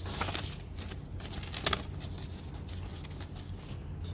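Faint rustling and light handling sounds as the unboxed items are moved about, a few soft clicks near the start and once more partway through, over a low steady hum.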